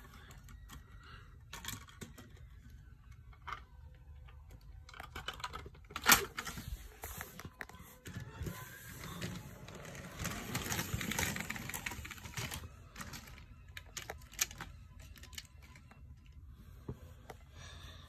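Lego bricks and train pieces being handled: scattered small plastic clicks and rattles, with one louder click about six seconds in and a longer stretch of rustling and clattering from about nine to twelve seconds.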